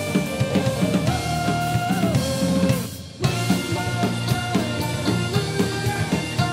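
Celtic punk band playing: a bagpipe melody of held notes over drum kit, bass and guitar. About three seconds in the band drops out for a moment, then comes back in.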